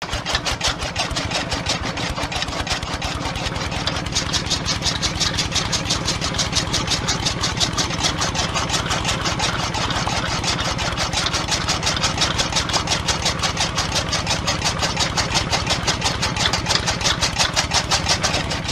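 Miniature home-made chaff cutter running: a small electric motor driving a belted flywheel and blade, with a rapid, even clatter as grass blades are fed in and chopped. It starts abruptly and cuts off at the end.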